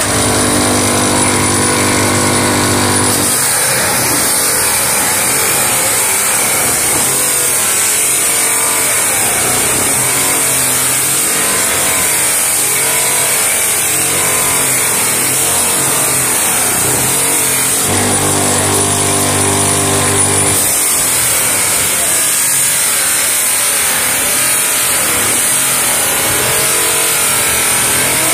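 Bench grinder motor spinning a white buffing wheel while a plastic headlight lens is pressed against it to polish the oxidised haze off. There is a steady motor hum for the first few seconds and again for a couple of seconds about two-thirds through. Between them comes a rougher rubbing noise with a wavering whine as the lens is worked against the wheel.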